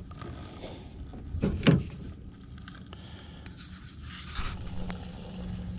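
Rubbing and scraping handling noise with a couple of sharp knocks about a second and a half in. A low steady motor hum comes in near the end.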